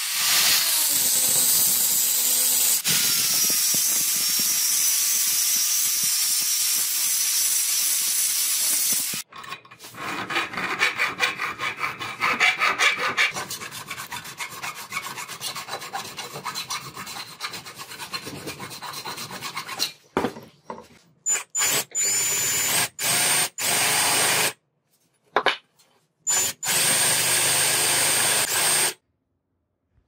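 An angle grinder grinds a brass knife-handle blank steadily for about nine seconds. Then a hacksaw cuts brass in quick repeated strokes. Near the end, a power drill bores in short bursts with a high whine, starting and stopping abruptly.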